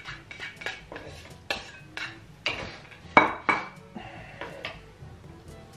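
Metal cutlery clinking and scraping against plates and dishes during a meal: a string of irregular sharp clinks, the loudest about three seconds in.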